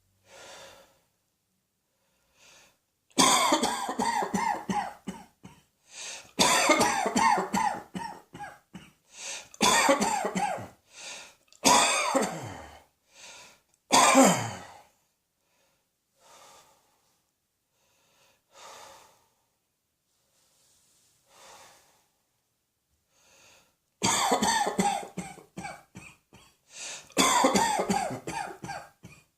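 A person coughing hard in fits: strings of rapid, loud, deep coughs from about three seconds in until about fifteen seconds, a pause with faint breaths, then another fit starting near the end.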